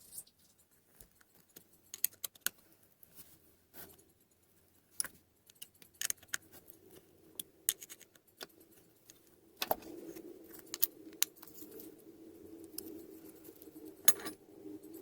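Scattered light clicks and metallic clinks of small workshop parts being handled on a workbench. A steady low hum starts about ten seconds in and carries on under further clicks.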